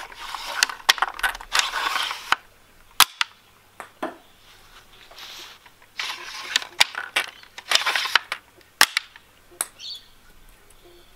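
Homemade wooden rubber-band-powered ping pong ball shotgun being worked and fired: a string of sharp wooden clacks and snaps with stretches of clatter between them, the two sharpest cracks about three seconds in and near the end.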